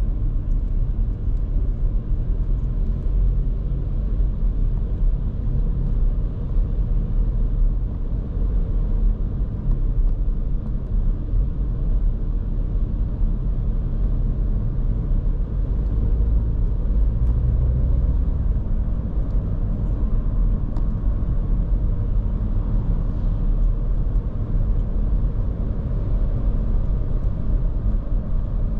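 Steady low rumble of engine and tyre-on-road noise heard from inside the cabin of a moving 2023 Škoda Kamiq 1.0 TSI, a three-cylinder turbocharged petrol car.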